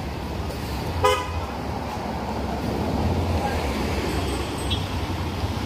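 Low, steady rumble of traffic engines, with one short vehicle horn toot about a second in.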